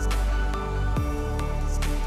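Background music: sustained chords over a deep beat that lands about once a second.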